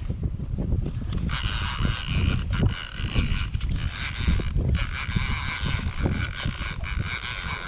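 Large conventional reel being cranked hard, its gears whirring in a steady run with a few brief breaks as line is winched in against a hooked sturgeon on a bent rod. The whirring starts about a second in, over a constant low rumble.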